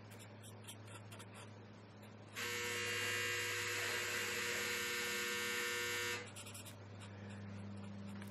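A steady electric buzz starts abruptly about two seconds in and cuts off about four seconds later. Before and after it, faint strokes of a marker tip on paper.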